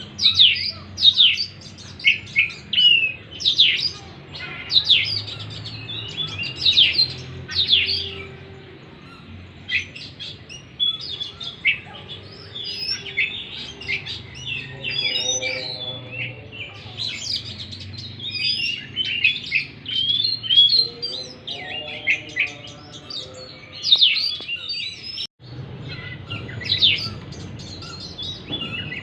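Oriental magpie-robin (kacer) song: a long, varied run of loud, sweeping whistled notes, with a few lower-pitched notes about halfway through and a brief break near the end. It is a lure recording played to trigger a silent, stressed kacer into singing.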